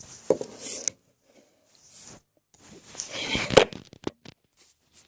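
Takeout fried-chicken packaging being handled and opened: two bursts of rustling and scraping, then a few sharp clicks near the end.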